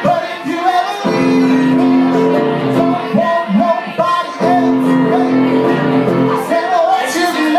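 Live rock-and-roll band playing, with a voice singing over held guitar chords that break off briefly a few times.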